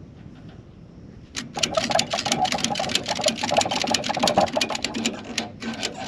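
Ratchet on a cargo ratchet strap being cranked to tension the strap over a round hay bale: rapid metallic clicking of the ratchet, starting about a second and a half in and running for about four seconds, with a few last clicks near the end.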